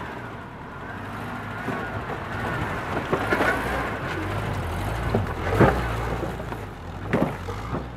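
Subaru Legacy Outback's flat-four engine running steadily nearby. A few short, louder sounds stand out over it about three and a half, five and a half and seven seconds in.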